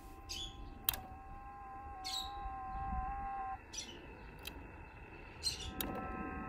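FT8 digital-mode signals from the Elecraft KX3 receiver's audio: several thin steady tones at different pitches, some shifting in small pitch steps and one stopping about halfway through. The signal is listened to while the ATAS-120 motorised antenna is driven up or down, and strengthens as the antenna comes closer to the right setting for the best SWR. Short high chirps come every couple of seconds.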